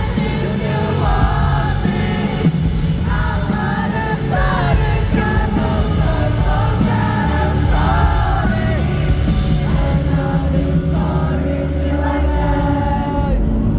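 Live band music with singing: loud, full band backing under a vocal line.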